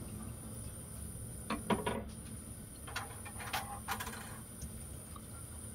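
A utensil knocking and clinking against a stainless steel pan while pork ribs are stirred in hot water: a few light clicks, a small cluster about a second and a half in and single ones later, over a low steady hiss.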